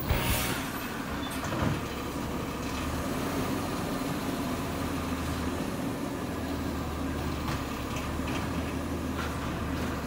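2014 CNG Peterbilt 320 garbage truck with a McNeilus Auto Reach body, its engine running steadily while stopped, giving a low hum with a few faint knocks.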